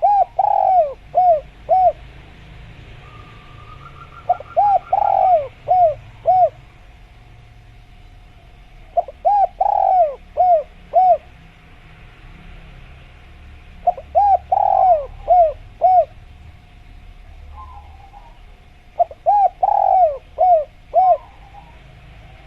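Spotted dove cooing, one phrase of about five notes roughly every five seconds.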